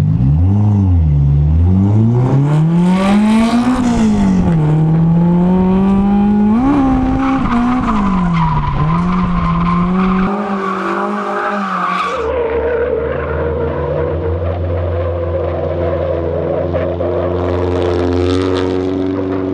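Toyota AE86 Corolla drift car's engine revving up and down hard as the car slides, with tyres squealing. About twelve seconds in, the sound turns to a steadier, held engine note under continuing tyre squeal as the car is held in a drift.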